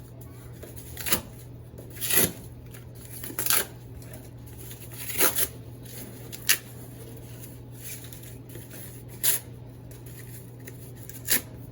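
Pieces of cardboard rustling and scraping as they are dropped into a plant pot and handled, in about seven short separate bursts a second or two apart.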